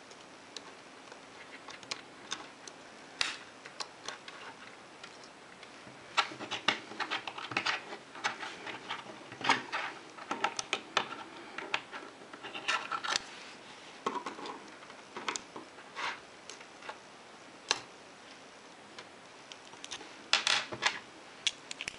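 Scattered small clicks, taps and scrapes of a digital watch's steel case back and metal link bracelet being handled on a wooden table while the watch is reassembled. The clicks come in busy clusters through the middle and again near the end.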